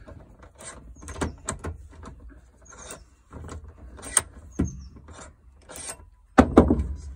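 Socket wrench undoing a 17 mm seatbelt anchor bolt on a van seat: irregular metal clicks and knocks, with a louder clatter of knocks near the end.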